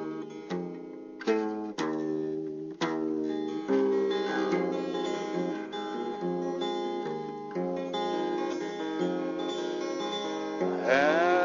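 Background music: acoustic guitar plucked and strummed, with a new sliding, held melodic line coming in near the end.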